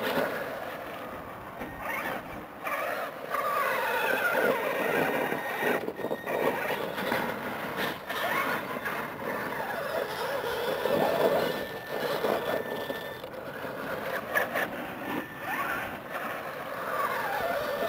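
Electric RC monster truck's motors and gears whining, the pitch rising and falling as the throttle is worked, with a few sharp knocks of the truck on rock and dirt.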